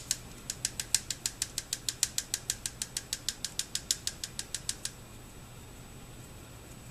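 Black pepper grinder being twisted by hand, a fast, even run of sharp clicks about seven a second that stops about five seconds in.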